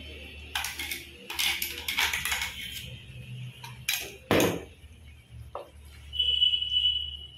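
A spatula scraping and knocking against an earthenware pot as ground coconut paste is stirred into a thick yoghurt curry, with one loud knock about four seconds in. Near the end a high, steady tone sounds for about a second.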